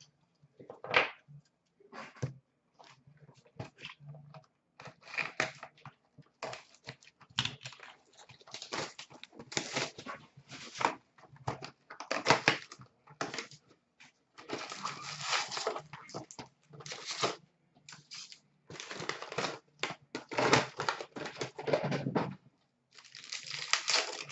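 A hobby box of hockey cards being opened by hand and its foil packs handled: a string of irregular scratchy rustles, with longer crinkling and tearing of wrappers in the second half.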